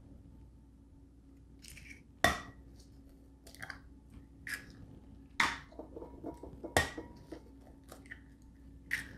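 Eggs being cracked against a mixing bowl and separated: a handful of sharp clinks of shell on the bowl, the loudest about two seconds in, with softer taps between.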